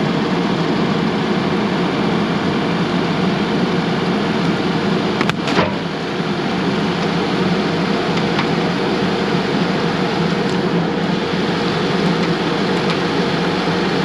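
Bulldozer's diesel engine running steadily while the blade presses down, with one sharp crack a little before halfway through as the wooden board on the box breaks under the blade.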